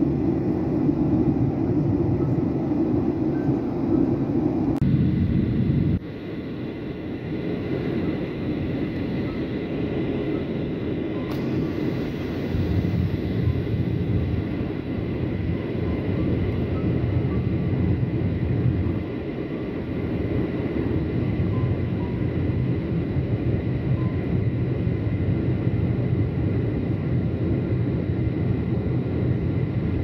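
Cabin noise of a twin-engined jet airliner in flight: the steady roar of the turbofan engines and airflow, with a faint steady high whine. The sound changes abruptly about five to six seconds in, getting quieter and less deep, and then runs on steadily.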